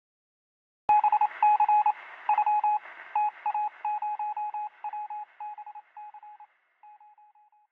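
Electronic beeping sound effect: a sharp click about a second in, then a quick, uneven run of short beeps at one pitch over a faint hiss, gradually fading out near the end.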